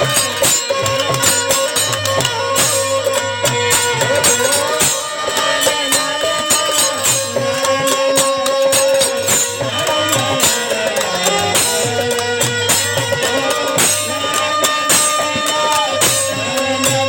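Instrumental passage of Indian folk devotional music: tambourine and drum strokes keep a steady rhythm under held melodic tones.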